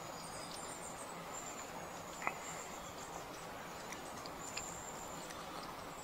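Insects trilling in the grass, a thin high-pitched buzz that stops and starts, over faint outdoor background noise; a single soft click about two seconds in.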